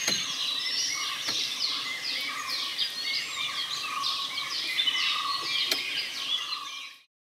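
A dense chorus of wild birds: many quick, overlapping descending chirps and calls over a lower, steadier call. It fades out quickly near the end.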